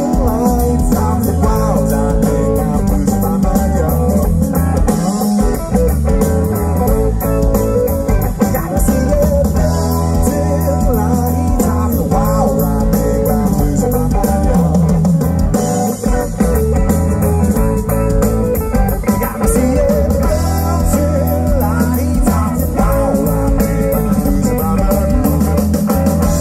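Live rock band playing loudly through a PA: electric guitars over a drum kit, with a wavering, bending lead line, heard from within the crowd.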